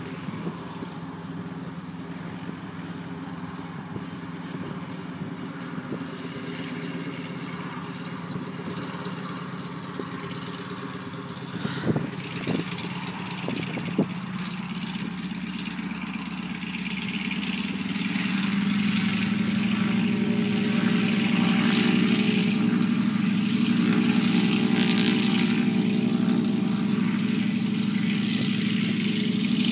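Nanchang CJ-6A trainer's nine-cylinder radial aircraft engine running steadily at low power, then growing clearly louder a little past halfway as power is brought up, and holding there. A few sharp knocks sound near the middle.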